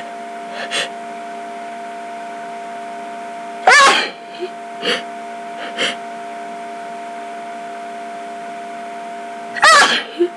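A person sneezing in a hay-fever sneezing fit. There are two loud sneezes, one about four seconds in and one near the end, with quieter sniffs and breaths between them.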